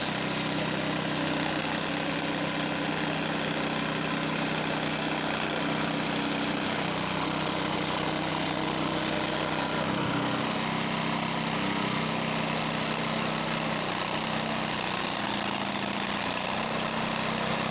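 Engine running steadily at an even speed, with no change in pitch or load.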